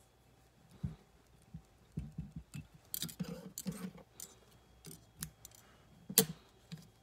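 Irregular clicks and rustles of fly-tying tools and materials being handled at a vise. They are busiest about three to four seconds in, with one sharp click about six seconds in.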